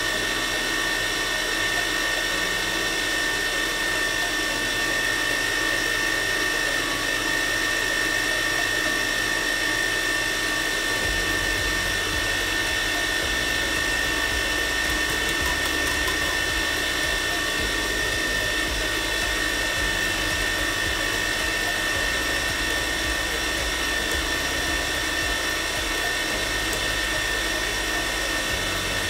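Electric mixer running steadily at speed, a constant high motor whine with an uneven low rumble coming in about eleven seconds in.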